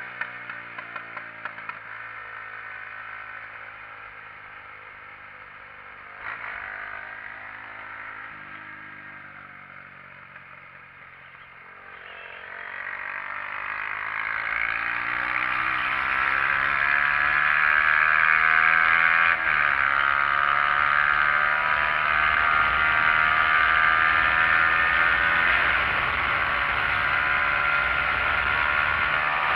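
Single-cylinder engine of a SYM XS125-K motorcycle under way, heard from the rider's seat. Its pitch steps at several gear changes as it eases off through a curve and then pulls away. A rush of wind grows louder as speed builds in the second half.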